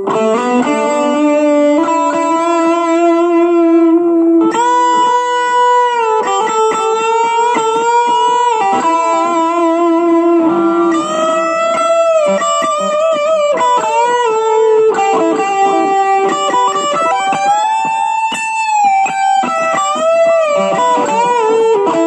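Electric guitar played through a Blackstar Fly 3, a 3-watt mini guitar amplifier: a single-note lead melody of sustained notes with string bends and vibrato.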